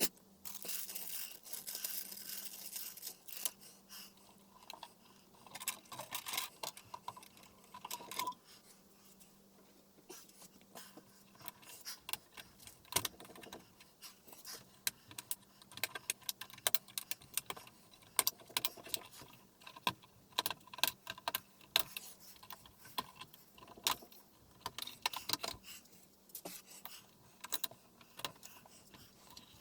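Handling noise from taking apart an LCD TV: a rubbing, sliding hiss near the start, then a long run of irregular small clicks, clinks and scrapes of parts and tools.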